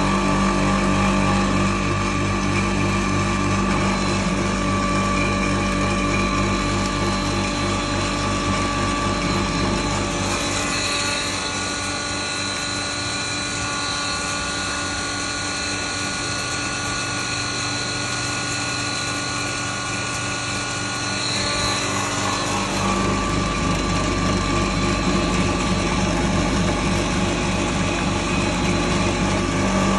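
Double-chamber maize grinder running steadily as it grinds dry corn kernels fed from its hopper, a continuous mechanical hum with steady tones. About ten seconds in the deep low hum drops away and the tone changes, and it comes back about twenty-two seconds in.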